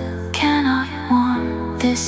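Retro Italo disco / synthwave music: a synth melody line gliding between notes over a steady bass.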